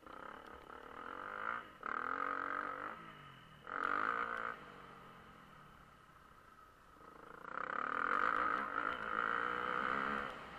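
Motocross bike engine revving hard in three surges, pitch climbing and dropping with the throttle, easing off between them as the bike rides the track.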